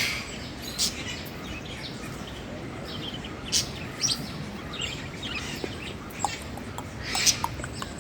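Small birds chirping, a scatter of short, sharp calls over a steady background hiss.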